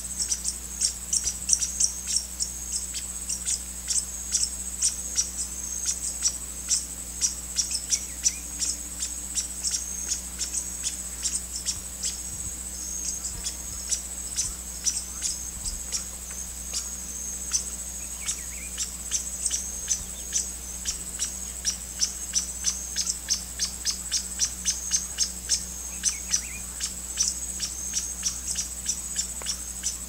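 A steady high-pitched insect trill, cricket- or cicada-like, runs throughout, with many quick high chips or ticks layered over it, several a second and irregular. A few faint lower bird notes come through now and then.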